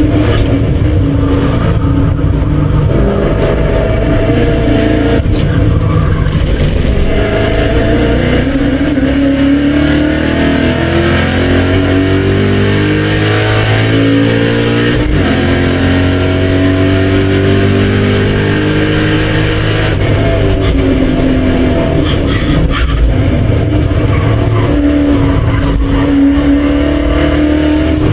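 BMW M5 E39's V8 engine under hard track driving, its pitch climbing and dropping as it revs up and changes gear, with a long falling stretch in the middle as it comes off the throttle.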